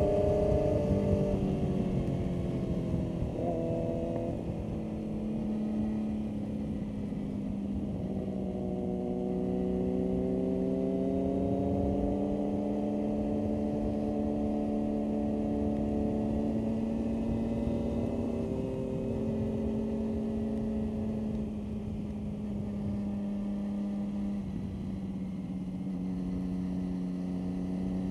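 Motorcycle engine heard onboard while riding a wet track: it dips in pitch near the start, climbs steadily over several seconds, holds, then steps down twice later on. A steady low rushing of wind runs underneath.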